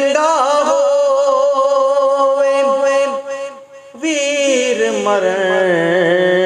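A man singing Punjabi Sufi kalam, drawing out one long held note with ornamented turns at its start. A little past halfway he pauses briefly for breath, then begins a new phrase that glides up and down in pitch.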